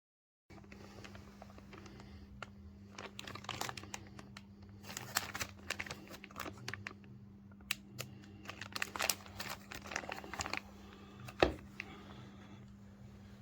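Rustling, crinkling handling noises with scattered clicks, and one sharp knock about eleven and a half seconds in, over a steady low electrical hum.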